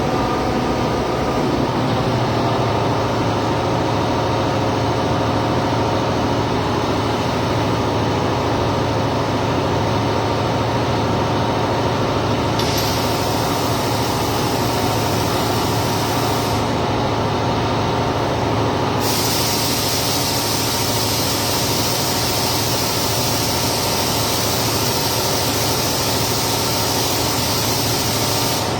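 Steady shop hum with a welding arc hissing over it. The hiss starts sharply about twelve seconds in, stops four seconds later, then strikes again about nineteen seconds in and runs on.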